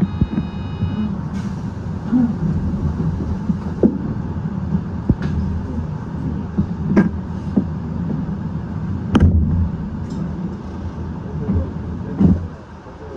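Seibu 8500-series rubber-tyred guideway train (Leo Liner) running, heard from on board: a steady low rumble with sharp knocks every few seconds. A brief high tone sounds at the very start.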